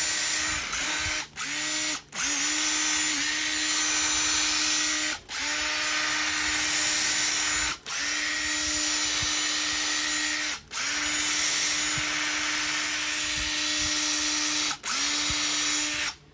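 Makita DTD152 18V cordless impact driver spinning free with no load: a steady motor whine. The trigger is pulled and released about seven times, each run lasting one to four seconds, rising briefly in pitch as it spins up and cutting off sharply.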